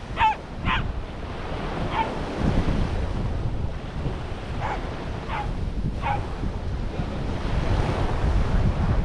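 Sea surf washing onto the beach, with wind buffeting the microphone. Several short, high yips from a small dog are heard, most of them in the first second and the rest spread through the middle.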